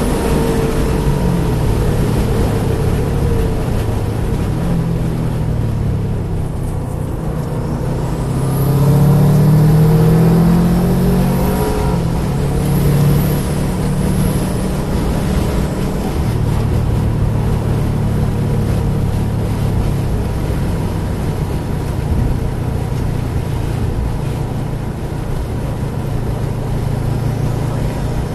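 A car's engine heard from inside the cabin while lapping a race track, its pitch rising under acceleration and falling off for corners, loudest about a third of the way in, over steady wind and tyre noise.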